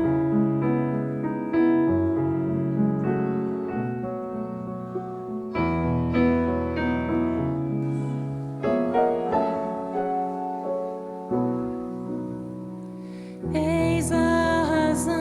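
Piano playing the slow introduction of a worship song: chords struck and left to ring. About two seconds before the end a fuller, brighter band sound comes in with it.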